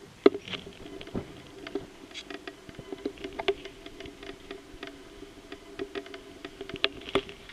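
Scattered small clicks and knocks of a power plug and its cables being handled and pushed into the socket on a variable autotransformer (variac). The sharpest click comes about a quarter second in, over a faint steady hum.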